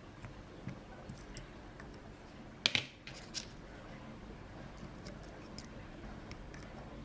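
Faint metallic clicks and scrapes of a hook pick and tension wrench working the pins inside a US Reese padlock, with one sharper, louder click-scrape a little before the middle and a smaller one just after it.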